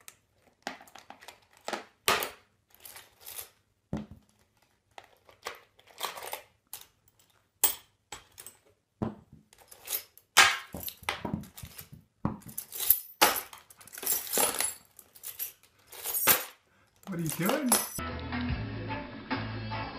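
Metal keys in a plastic tub jingling and clattering in irregular bursts as a galah (rose-breasted cockatoo) rummages through them with its beak. Background music starts near the end.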